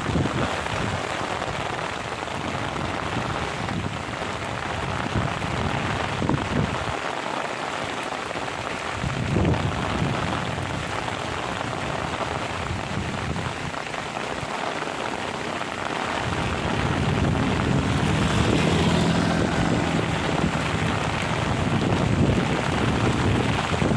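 Heavy rain pouring steadily, a dense hiss of drops on surfaces, with gusts of strong wind rumbling across the microphone, heavier in the last several seconds.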